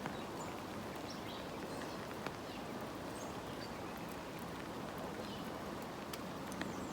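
Steady hiss of heavy rain falling, with scattered drops ticking sharply close by.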